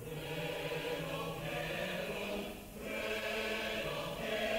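A choir singing long held chords in two phrases, with a short break between them a little under three seconds in.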